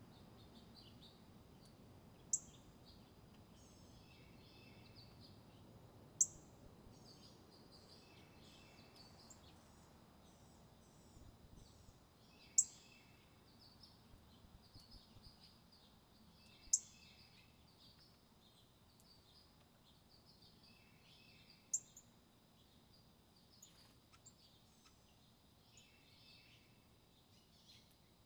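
Wild songbirds calling: a sharp, loud chip about every four to five seconds, five in all, over frequent softer chirps and twittering. A thin, steady high whine runs underneath.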